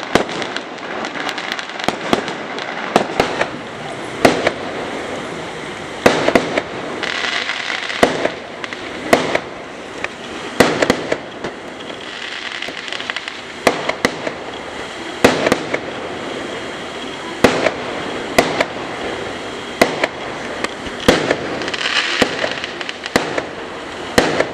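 Aerial fireworks going off: sharp bangs at irregular intervals, about one or two a second, over continuous crackling.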